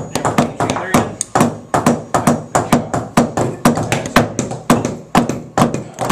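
Several hammers driving nails into wood: sharp, irregular strikes, about three a second, some overlapping.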